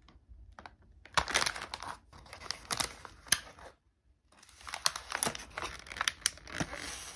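Foil snack bag and clear plastic tray crinkling and crackling as the tray of wrapped sweets is slid out and handled, in two spells of a couple of seconds each with a short pause between. Near the end a paper wrapper is being torn open.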